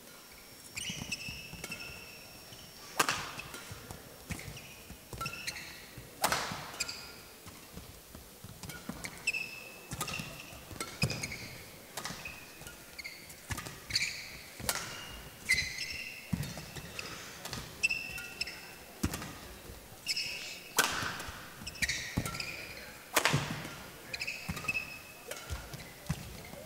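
Badminton rally: sharp racket strikes on the shuttlecock every second or two, mixed with frequent short high squeaks of players' shoes on the court floor.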